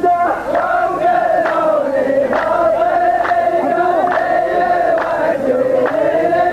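Rows of men chanting a muhawara (qalta) poetry verse in unison, one long slow melodic line, with a sharp clap about once a second.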